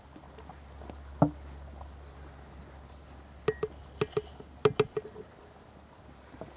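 A glass teapot and its wooden lid being handled: one sharp knock about a second in, then a quick run of short glassy clinks about halfway through.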